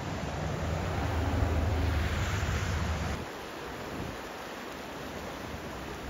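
Steady rush of river water, with wind rumbling on the microphone until about three seconds in.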